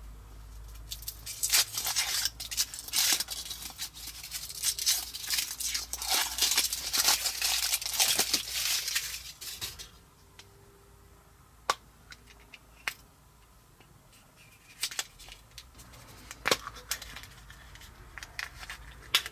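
Foil wrapper of a Kinder Surprise chocolate egg crinkling and tearing as it is peeled off, for about ten seconds. Then a few separate sharp clicks and snaps as the chocolate shell is broken and the plastic toy capsule is opened.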